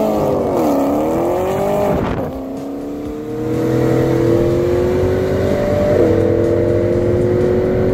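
A car engine accelerating hard at full throttle. Its pitch dips about a second in, then climbs steadily and falls back sharply at an upshift about six seconds in, then climbs again.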